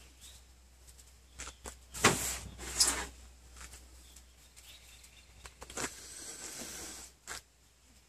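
Dry pine needles rustling and crackling in the hands as a tinder bundle is folded around a smouldering fire-roll ember. It comes in a few short bursts, with a longer stretch a little before the end.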